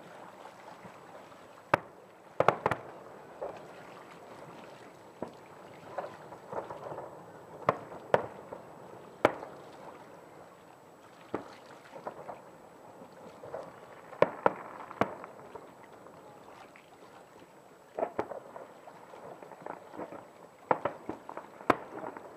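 Distant fireworks display: irregular sharp bangs of shells bursting, some in quick pairs or clusters, with a faint crackle between them.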